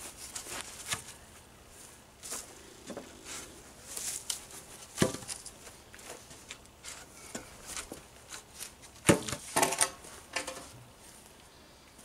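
Wooden boards being handled and set down on grass, with scattered knocks of wood on wood and rustling. The loudest thud comes about five seconds in, and a quick cluster of knocks comes around nine to ten seconds in.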